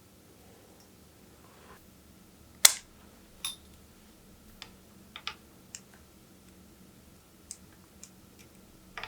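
A scattering of sharp, irregular clicks and taps from hand work on a bicycle, with tools and small parts being handled; the loudest comes about two and a half seconds in.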